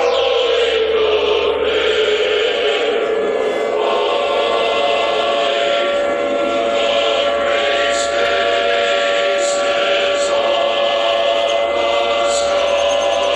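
A siren wailing: one long held tone that slides down in pitch at first, then holds steady before starting to fall again at the end.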